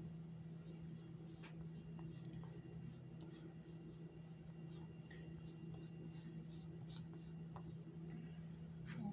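Silicone spatula spreading a gritty brown sugar and breadcrumb filling over soft bread dough: soft, scratchy scraping strokes, over a steady low hum.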